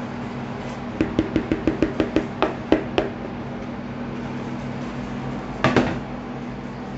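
A rapid run of about a dozen light taps, some six a second, on a plastic mixing bowl as dry cake ingredients are knocked out of it into a metal sieve. A short double knock follows a couple of seconds later.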